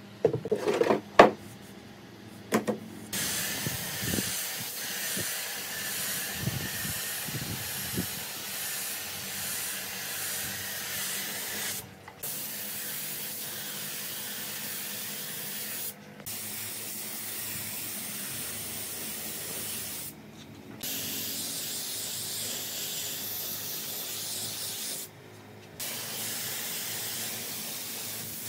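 A few sharp knocks, then a spray gun hissing steadily as it sprays finish over the table in long passes. The hiss stops briefly four times, each time the trigger is let go.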